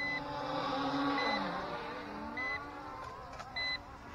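Small quadcopter drone's propellers whirring, the pitch wavering up and down, while a short high beep repeats about once every 1.2 seconds.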